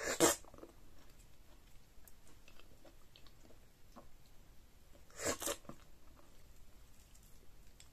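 Close-up eating sounds of pounded yam fufu with slimy ogbono and okra soup, eaten by hand: a loud wet mouth noise right at the start as a morsel goes in, a double one about five seconds in, and soft chewing with small clicks between.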